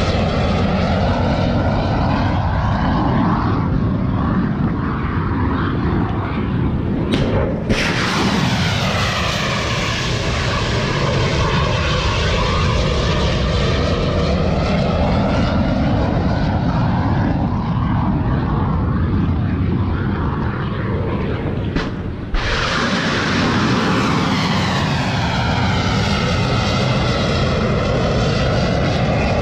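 Loud, steady roar of shipboard missile launches, the rocket exhaust noise sweeping and phasing as it goes. It breaks off briefly about a quarter of the way in and again about three-quarters of the way in, and a fresh roar starts each time.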